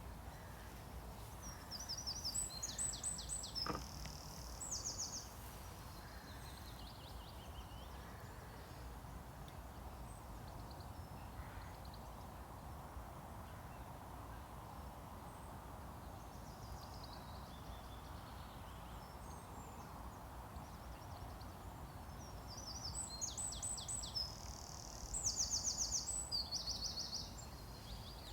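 Songbird singing: two spells of quick, high chirping trills, about two seconds in and again near the end, over a steady faint background hiss.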